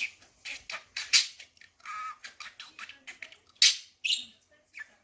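Budgerigar chattering: a rapid run of short chirps, squawks and mimicked syllables, with a louder squawk about three-quarters of the way through.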